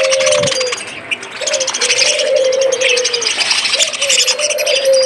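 A flock of caged budgerigars chattering and chirping continuously, with a dove cooing in long, low, slightly falling notes about three times.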